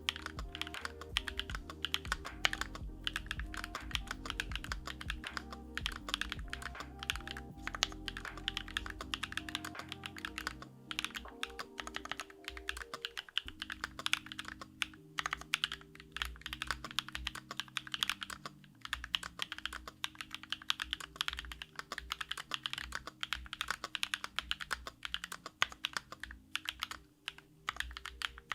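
Continuous fast typing on a Sakura Studio Fuji 65 mechanical keyboard fitted with factory-lubed JWK Night Sakura switches on an aluminium plate, a dense run of key clicks. Soft background music plays underneath.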